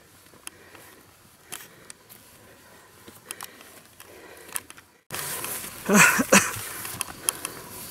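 Soft footsteps on a grassy dirt path uphill, scattered light steps and rustles. After an abrupt cut about five seconds in, a brief loud burst of voice, the loudest sound.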